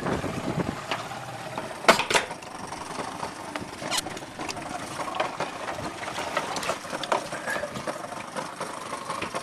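Irregular sharp knocks and slaps on a fishing boat's deck, the loudest two close together about two seconds in, over the steady running of the boat's engine.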